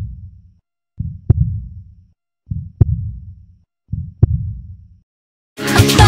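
A slow heartbeat sound effect: deep thumps about every one and a half seconds, each with a sharp click, with silence between them. Pop music with singing comes in near the end.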